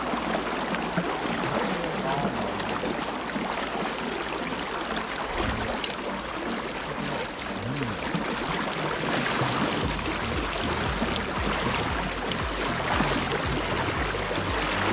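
Steady rush of a shallow river current flowing and splashing around a wading angler's legs.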